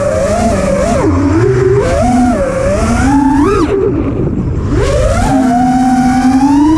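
FPV quadcopter's brushless motors whining, the pitch swinging up and down with throttle changes: a steep climb about halfway through, a brief drop, then a steady rise near the end.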